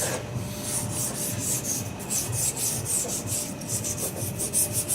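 A brush scrubbing used engine oil onto the steel leaf springs of a UAZ Patriot's rear suspension, in quick repeated scratchy strokes. The springs are being oiled to stop them squeaking.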